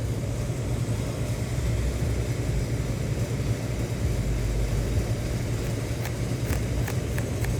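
A steady low hum, with a few faint short clicks near the end as a razor knife trims the ends of a rubber tire plug flush with the tread.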